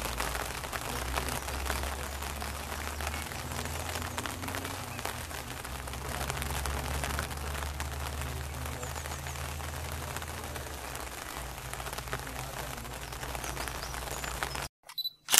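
Rain pattering steadily, many small drops ticking over a continuous hiss, with a low steady hum underneath; the sound cuts off abruptly near the end.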